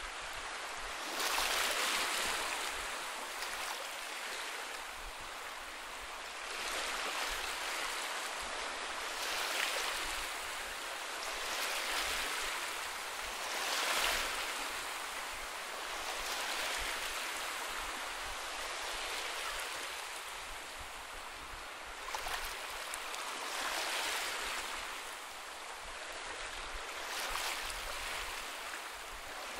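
Sea waves washing onto a beach, a steady rushing hiss that swells and fades every few seconds.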